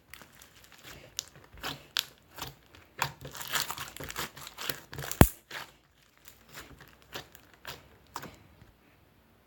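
Crinkly material being handled and crumpled close up: irregular crinkling and rustling with one sharp tap a little past halfway. The sound thins out and stops near the end.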